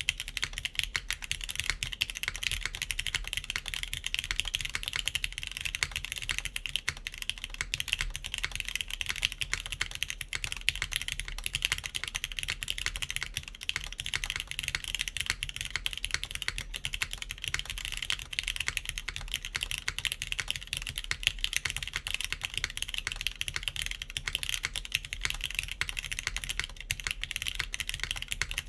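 Continuous fast typing on a KBDfans Tofu60 3.0 mechanical keyboard in top-mount configuration, with clicky TypePlus NK Classic Blue switches under GMK keycaps: a dense stream of sharp clicks.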